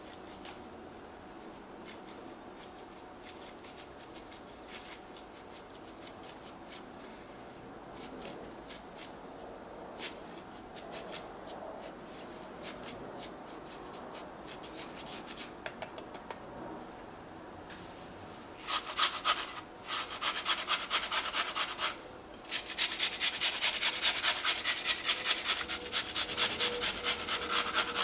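Pecorino Romano cheese and then an onion rubbed over a handheld grater. The strokes are faint and scattered at first, then turn to loud, rapid rasping at about four strokes a second in the last third, with a short pause just before it settles into a steady rhythm.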